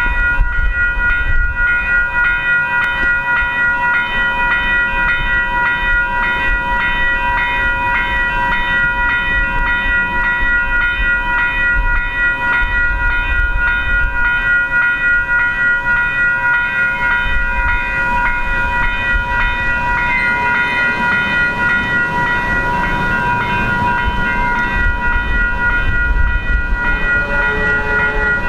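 Railroad grade-crossing warning bells ringing continuously with an even, rapid pulse, as the crossing signals are activated for an approaching train. A low rumble builds underneath in the second half.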